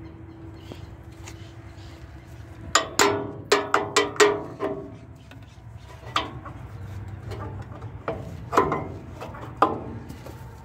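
Metal clanks of a steel pry bar and hand tool against a semitrailer drum-brake shoe and its return springs as the shoe is levered off. A quick run of about six sharp knocks a few seconds in, then single knocks spaced a couple of seconds apart.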